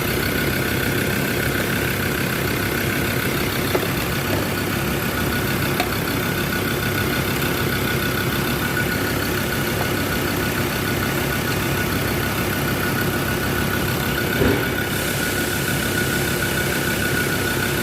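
Mazda/Ford diesel pickup engine idling steadily, running on its own after a camshaft position sensor swap and charging its flat battery through the alternator.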